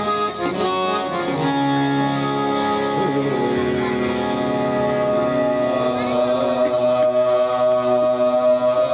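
Harmoniums playing a slow opening melody of long held notes that change every second or two. The sound grows fuller and pulses from about six seconds in.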